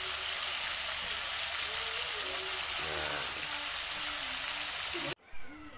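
Pork pieces sizzling steadily in hot oil in a wok as they are turned with tongs. The sizzle cuts off abruptly about five seconds in.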